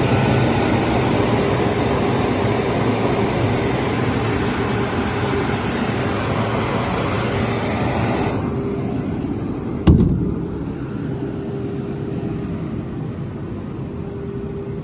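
Boge S 20-2 screw compressor with a 15 kW motor running: a steady loud hiss and hum. About eight seconds in the high hiss drops away, and about ten seconds in there is a single sharp click, after which it runs on more quietly.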